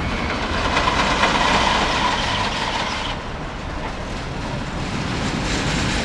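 Ride cars running along a rail track, a steady rumble and clatter of wheels on rails with a faint whine; the higher rushing part falls away about three seconds in.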